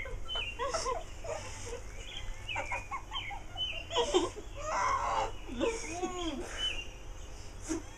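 Muffled laughter from two girls with their mouths stuffed full of marshmallows, uneven giggles and squeals with the pitch sliding up and down, loudest about four to five seconds in.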